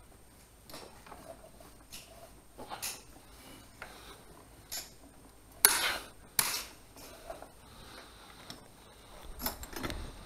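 Metal rope-access hardware, carabiners and a descender on a bosun's chair, clinking and knocking as the rigging is handled: a string of separate clicks, with two louder clanks about six seconds in.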